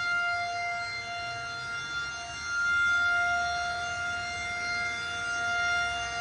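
Federal Signal 2001-130 electromechanical tornado siren sounding a steady single tone during a test, its loudness swelling and fading every few seconds as the rotating horn sweeps past.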